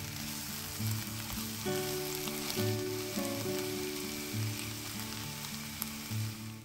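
Diced eggplant, bell pepper and onion sizzling as they fry in oil in a nonstick pan, with the occasional scrape of a spoon stirring them. Soft background music with a slow repeating bass pattern plays underneath.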